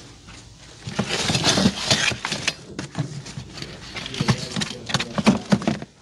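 Rummaging through boxes and parts on a shelf: irregular rustling, clattering and knocking that starts about a second in.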